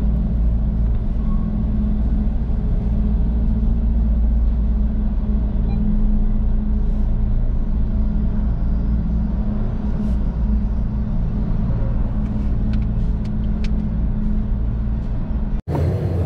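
Steady low drone and rumble of idling engines in a ferry's enclosed car deck as vehicles slowly queue to drive off, with a few faint ticks. It breaks off abruptly just before the end, where a different sound begins.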